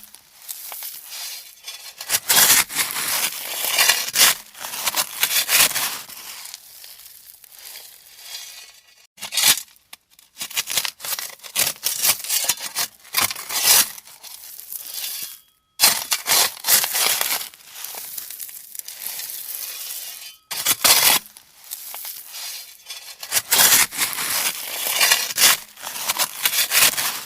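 A shovel scraping and crunching into gravel, stroke after stroke. Each scoop or throw is a burst of gritty noise lasting from about a second to several seconds, with short pauses between them.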